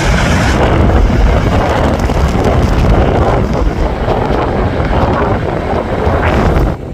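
Strong gusty wind buffeting the microphone, a heavy low rumble, with a passing airliner's jet noise dying away in the first second. The sound drops off sharply near the end.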